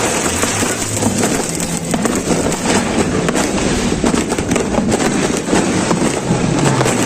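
Fireworks and firecrackers going off in a dense, continuous run of crackles and pops, thickening about two seconds in.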